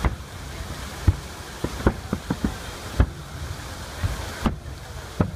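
Festive salute fireworks going off in an uneven string of sharp bangs, about nine in five seconds, the strongest about a second and three seconds in. Under them runs a steady rush of water from the illuminated fountains.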